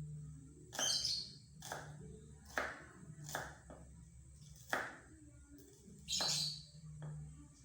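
About six sharp, irregular knocks of kitchen work, with a bird chirping twice: about a second in and again near the end.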